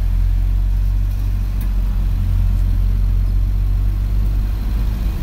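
Bus engine and road rumble heard from inside the moving bus: a steady low drone, with a faint click about a second and a half in.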